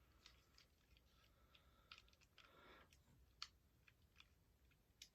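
Near silence with a few faint, scattered clicks of plastic, a Beyblade launcher and top being handled and fitted together.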